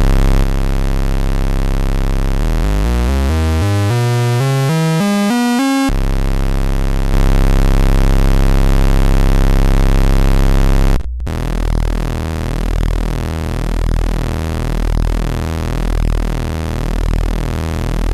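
Raw analog synthesizer oscillator tones played through a CP3-type discrete-component mixer. First come buzzing 4027 VCO tones, with one tone gliding upward in pitch and then holding steady, getting louder about 7 s in. About 11 s in it cuts to a dense buzzing DNA Symbiotic Waves oscillator tone that swells and fades about once a second.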